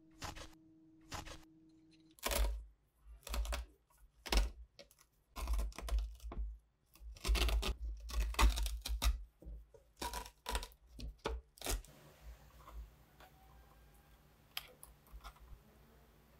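A blade scraping old fibre padding off a board in short strokes, then a run of ragged rips and rustles with dull thumps as the fibres are torn away by hand. It tapers off to a few faint handling ticks about twelve seconds in.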